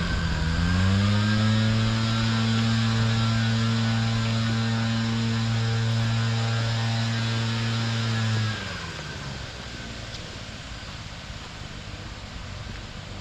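An engine running at a steady speed with a low hum, dipping and picking up again at the start, then winding down and stopping about eight and a half seconds in. A steady rushing noise remains after it stops.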